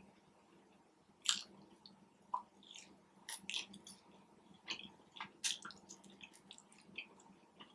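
Close-miked eating: chewing with wet mouth smacks and irregular clicks, two sharper snaps about a second in and about five and a half seconds in.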